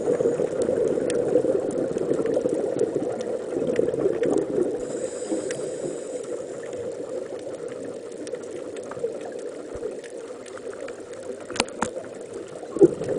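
Underwater sound picked up through a dive camera's housing: a muffled, bubbling rush, most likely the filming diver's exhaled regulator bubbles. It swells at the start, fades in the middle and surges again near the end, with a few sharp clicks scattered through it.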